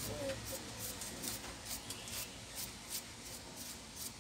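Faint handling noise: irregular light clicks and rustles, a few a second, over a low steady hum.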